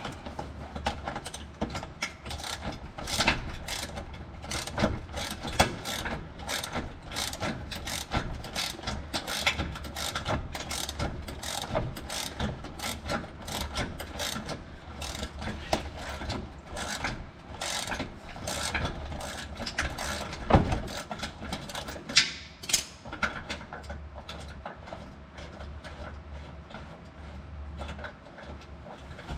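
Ratchet wrench clicking in quick, uneven runs while backing out a long bolt that holds an underbody cover, with a few louder knocks in the second half.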